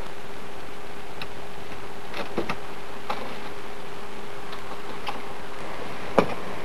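Steady hiss with a faint hum, broken by a few scattered faint clicks and one louder sharp tap about six seconds in.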